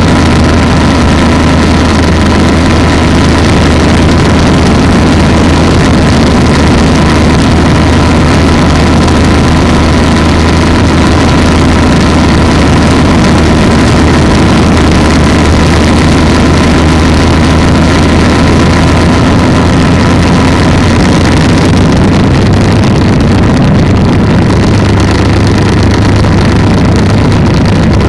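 Polini 190 single-cylinder two-stroke engine of an ultralight trike running loud and steady, with a constant low drone and a thin whine on top.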